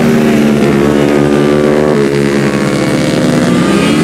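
Several racing motorcycle engines at high revs, their pitch rising and falling with throttle and gear changes, with a step in pitch about halfway through.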